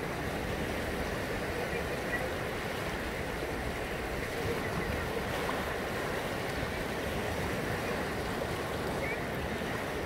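Choppy sea water lapping and splashing close by, a steady rushing wash of small waves.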